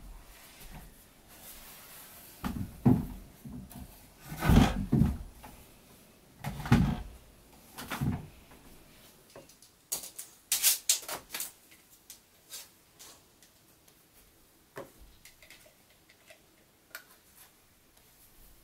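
Wooden knocks and heavy thumps as a wooden ladder is climbed and handled, four or five of them in the first half. A quick cluster of sharp clicks and taps follows, then a few lighter taps.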